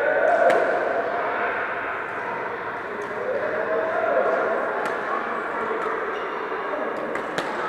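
Badminton being played in a reverberant sports hall: sharp racket-on-shuttlecock hits at scattered moments over a steady din of distant voices from the other courts.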